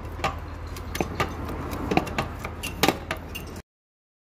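Hand-lever bucket pump for 140-weight gear oil being worked, its metal handle and linkage clinking and knocking irregularly, about seven sharp clinks over a steady low hum. The sound cuts off suddenly about three and a half seconds in.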